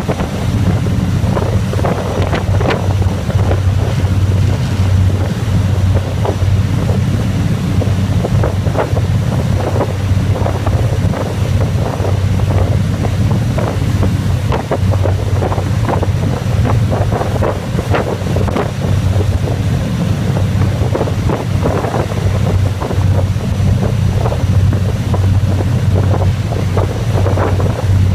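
Fast patrol boat running at speed: a steady low engine drone under the rushing noise of the wake and spray, with wind buffeting the microphone.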